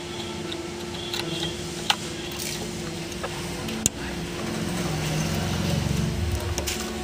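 Plastic wiring-harness connectors being handled and pushed into their sockets behind a car dashboard, with two sharp clicks about two seconds apart. Under them is a steady hum, and a low rumble swells after the middle.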